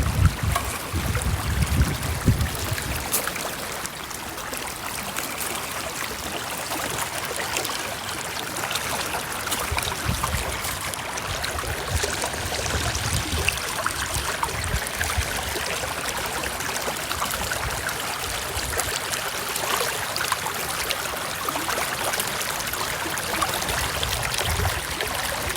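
River water flowing, a steady rushing hiss, with a few low thumps in the first couple of seconds.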